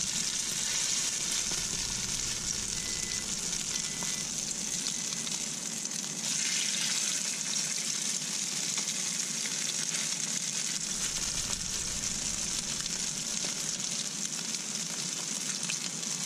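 Salmon patties frying in a pan of oil, with a steady sizzle.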